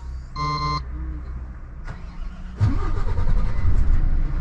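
A short electronic beep, then about two and a half seconds in the Renault T480's straight-six diesel engine is started and settles into a steady idle.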